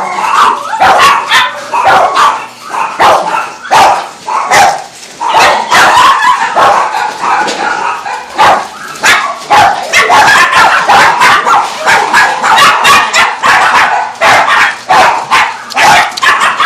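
Many shelter dogs barking at once, barks overlapping without pause.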